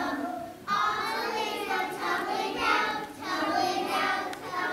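A group of preschool children singing a song together in short phrases, with a brief break about half a second in.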